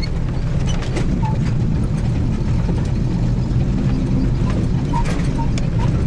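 Four-wheel-drive vehicle driving on a rough dirt forest road: a steady low engine and tyre rumble, with scattered knocks and rattles over the bumps.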